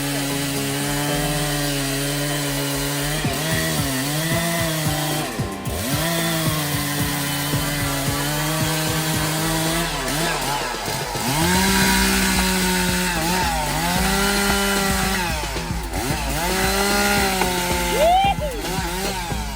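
Chainsaw running in a cut, its engine pitch sagging as it loads up in the wood and climbing back again and again. It gets louder about halfway through.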